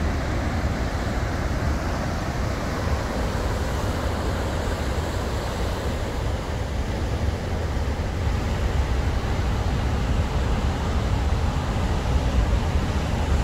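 Heavy storm surf breaking along the shore: a steady roar of waves with a deep rumble underneath.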